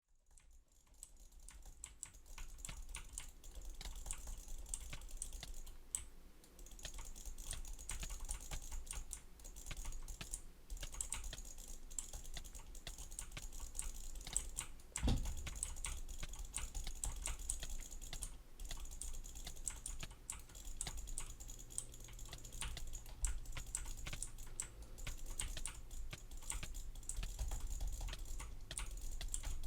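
Computer keyboard keys clicking rapidly and irregularly, with a single heavy low thump about halfway through.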